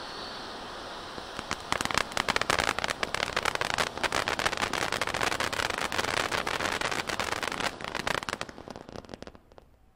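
Giant volcano-type ground firework fountain. It sprays sparks with a steady hiss, and after about a second and a half breaks into dense crackling from its white crackle effect. The crackling dies away over the last second or two as the fountain burns out.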